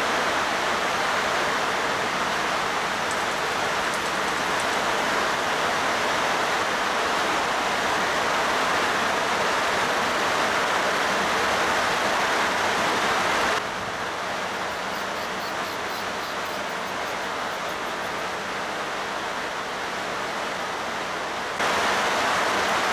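Steady rushing, hiss-like noise with no distinct tone. It drops quieter suddenly about fourteen seconds in and comes back up about eight seconds later.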